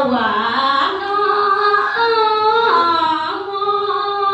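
A woman's unaccompanied traditional Téduray chant sung into a microphone: one voice holding long notes that slide down and step up between pitches.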